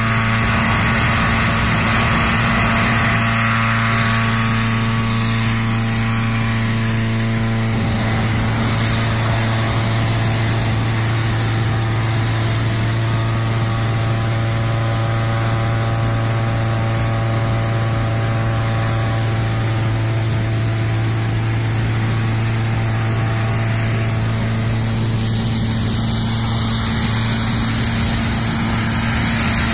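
Engine-driven inflator fan running steadily, blowing air into a hot-air balloon envelope during inflation, with the balloon's propane burner firing into the envelope's mouth.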